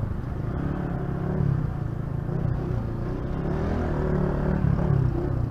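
Honda CG Titan 125 motorcycle's single-cylinder four-stroke engine running steadily under way, its note wavering slightly in pitch, with wind and road noise. The bike is fitted with a non-stock exhaust.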